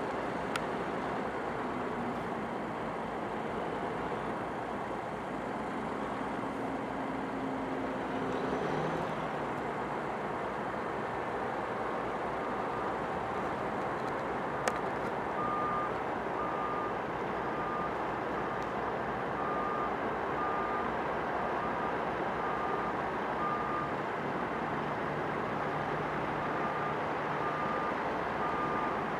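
Heavy diesel equipment running steadily, and from about halfway in a truck's reversing alarm beeping about once a second, pausing briefly and then starting again as the truck backs up to unload.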